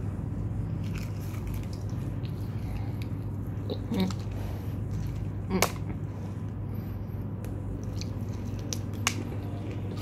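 Crunchy bites and chewing of crispy deep-fried battered squid on a skewer: scattered sharp crackles, the two loudest about four and five and a half seconds in, over a steady low hum.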